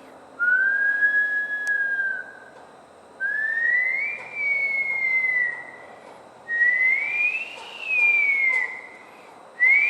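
Bush stone-curlew giving its long wailing cry: a series of drawn-out whistled notes, each rising higher than the one before, the first held fairly level and the later ones climbing and then sliding down, with a fourth note starting near the end.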